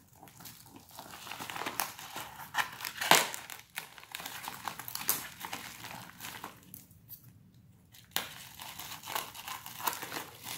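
Black plastic courier mailer bag crinkling and tearing as it is cut with scissors and pulled open by hand. The crackles are irregular, with one sharp loud snap about three seconds in and a quieter lull around seven seconds in.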